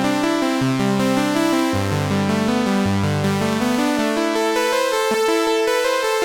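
Four Behringer Model D analog synthesizers polychained into one four-voice polyphonic synth, playing held chords over a bass line that moves to a new note about once a second, with a little reverb.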